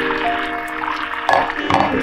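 Background music with held melodic notes. Beneath it are faint sounds of a glass lid coming off a small saucepan of simmering liquid, with two short noisy sounds about one and a half seconds in.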